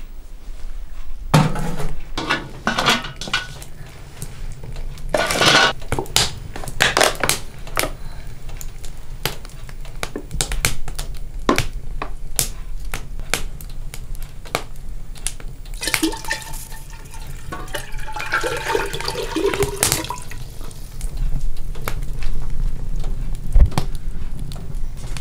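A heavy stone pot knocked and scraped as it is set on a metal wood stove, giving a run of sharp clunks and clicks, with oil later poured into the pot.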